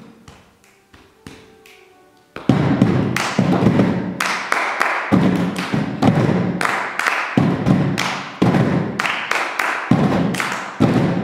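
Several pairs of hands drumming together on upturned plastic storage boxes, used as hand drums. After a quiet lull the drumming starts about two seconds in, in a loud, steady rhythm.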